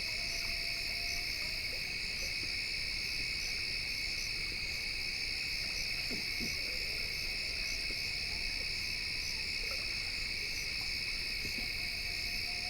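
Owl calls: faint thin steady notes, each about a second long, near the start and again twice in the later part. Behind them is a steady, shrill chorus of night insects.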